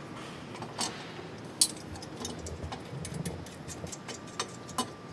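Light metal clicks and taps of stainless steel exhaust header pipes, flanges and nuts being handled and fitted to a VW Beetle engine's exhaust studs. A few sharp, scattered clicks, the loudest about a second and a half in.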